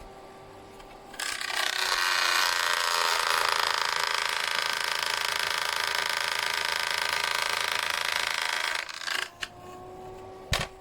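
Electric fan heater's fan switching on about a second in and running steadily, with air noise and a motor whine, then cutting off; a sharp click follows near the end.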